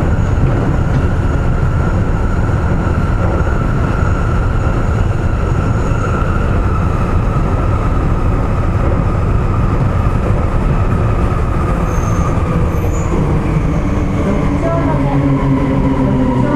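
Sendai Subway Tozai Line linear-motor train running through a tunnel, heard from inside the rear cab: a steady low rumble with a motor whine that slowly falls in pitch.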